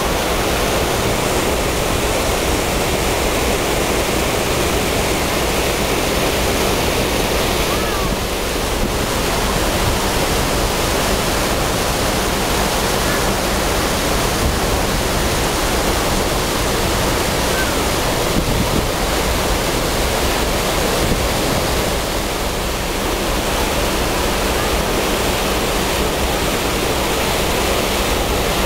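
Steady rushing of wind and sea water past a moving car ferry, heard from its open deck as it churns up a wake, with a low steady hum beneath.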